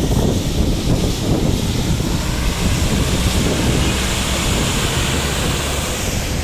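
Heavy rain falling steadily, with wind buffeting the microphone in a low rumble.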